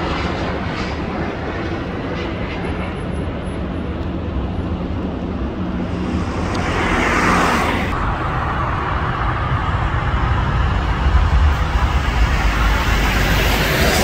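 Jet airliner engine noise mixed with road traffic: a steady rumble, a swell that rises and passes about seven seconds in, and a heavier low rumble near the end.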